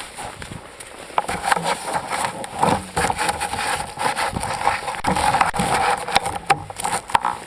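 Handling noise right at a kayak's deck: irregular knocks, clicks and scraping as a gloved hand works on the deck close to the microphone, with clothing rustling.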